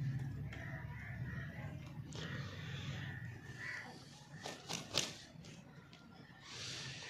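Rooster beating its wings: a quick run of sharp flaps about four and a half to five seconds in.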